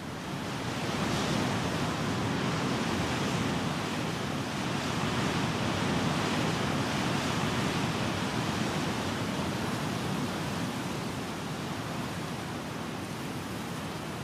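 A steady rushing noise, even and without any tone or rhythm, that swells up over the first second or two and then holds, easing off slightly near the end.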